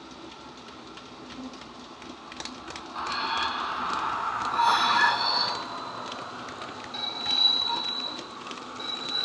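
Heljan OO gauge model of the Metropolitan electric locomotive Sarah Siddons passing, its DCC sound decoder playing electric-locomotive running sounds through its small speaker. The sound grows loud about three seconds in as the loco goes by. Clicks of the wheels on the track and a thin, high, steady tone come later as the coaches follow round the curve.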